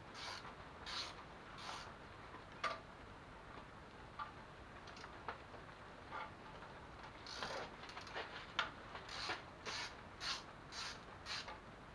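Hand ratchet wrench clicking in short strokes, about one every two-thirds of a second, as nuts are worked loose on a BMW M50B25 engine's exhaust manifold. The strokes stop for a few seconds with only a few light metallic clicks, then start again in the second half.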